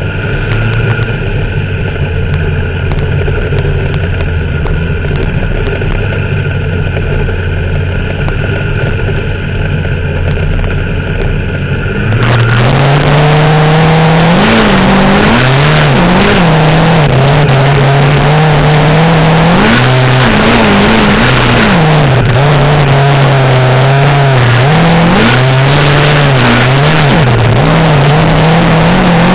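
Midget race car engine heard from the cockpit: a steady, lower-pitched drone for about twelve seconds, then it opens up suddenly, much louder and higher, with the revs rising and falling again and again as the throttle is worked through the turns.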